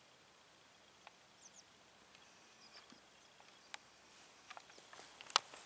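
Quiet outdoor ambience with a few faint, short bird chirps and scattered clicks. The clicks come more often near the end.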